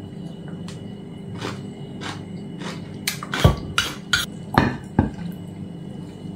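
Wooden pestle knocking in a clay mortar while a spoon scrapes and tosses, as green papaya salad (som tam) is lightly pounded and mixed: sharp knocks about every half second, with two heavier thuds about three and a half and five seconds in.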